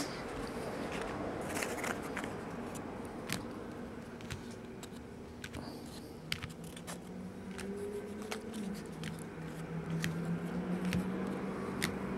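Basketball trading cards being set down one by one on a tabletop: a scatter of light clicks and taps as the cards are handled and placed. A faint steady low hum comes in about halfway.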